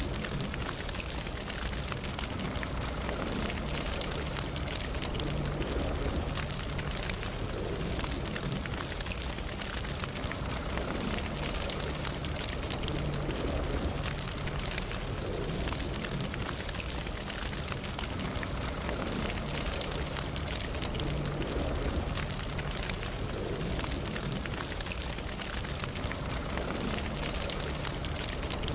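Campfire burning steadily, with a low rumble of flames and frequent small crackles and pops of burning wood.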